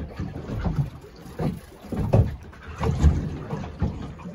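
Choppy sea water slapping against a small boat's hull: irregular low thumps and sloshing, about one a second.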